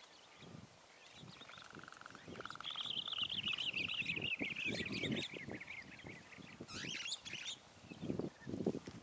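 Bird calls: a brief pulsed note, then a long wavering call that slowly falls in pitch, and a short sharp call near the end. Low irregular rustling and crunching runs underneath.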